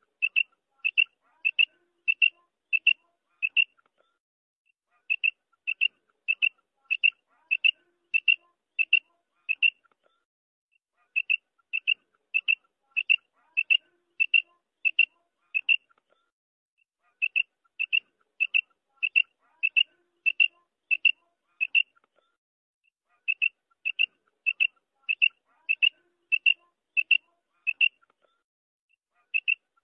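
Quail calling: short, high-pitched notes at about two a second, in runs of about eight or nine, with a pause of about a second and a half between runs, repeating every six seconds or so.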